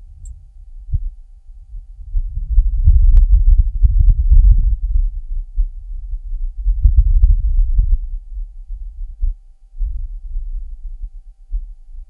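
Martian wind picked up by the Perseverance rover's microphone on the surface of Mars, with the rover's own machine noise filtered out: a low, gusty rumble that swells about two and a half seconds in and again about seven seconds in.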